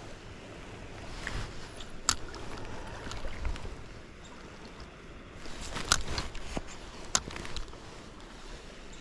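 Flowing creek water, with a few sharp clicks about two, six and seven seconds in.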